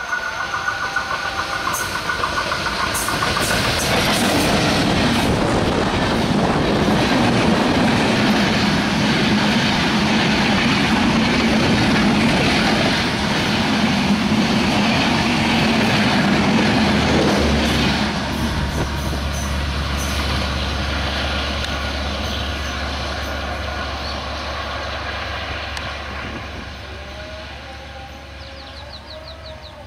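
Diesel-hauled passenger train passing at speed. The locomotive's horn trails off in the first couple of seconds, then the rush of engine and wheels on the rails builds up loud as the coaches go by, and fades as the train runs away.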